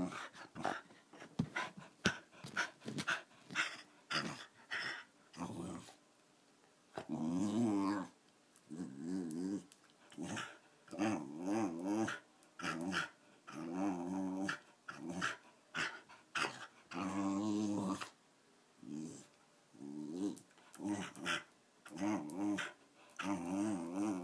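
A 13-year-old wire-haired fox terrier "talking": a long string of wavering, warbling whines and grumbles, each a second or so long with short pauses between, a begging vocalisation.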